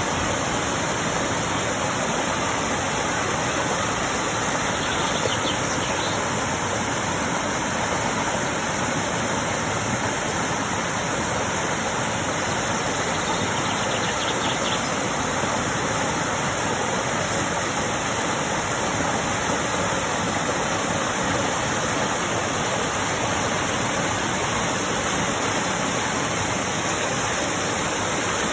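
Steady, unbroken rush of falling water, like a waterfall or cascade.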